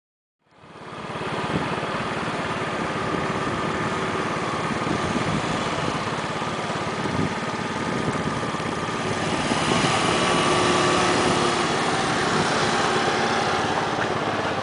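Small motor scooter engine running steadily, fading in about half a second in.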